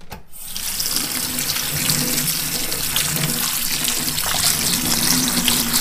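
Hot water running from a kitchen tap onto frozen rosehips in a stainless steel colander over a sink. It starts a moment in and runs steadily.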